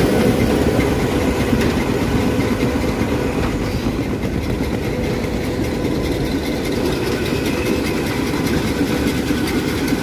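Case IH combine harvester running steadily beside its draper header, a continuous mechanical rumble with a fine, fast rattle.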